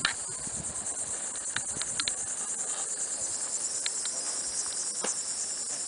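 Steady high-pitched chorus of insects with a fast, fine pulse, and a few light clicks scattered through it.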